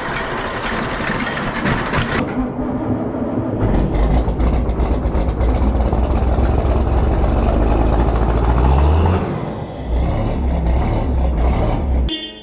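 Farm tractor engine running with a loud, uneven deep rumble. The sound changes abruptly about two seconds in, and the rumble grows heavier a second or so later.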